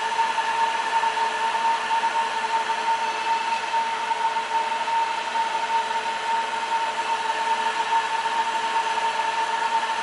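SS-SM05 table-top enameled wire stripping machine running: its electric motor spins the conical fiberglass stripping wheels with a steady whir and a constant high-pitched whine.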